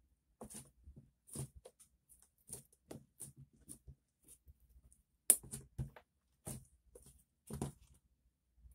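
Glossy slime being pressed flat and pulled up by hand against a tabletop, making short, irregular clicks and squishes. The loudest comes about five seconds in.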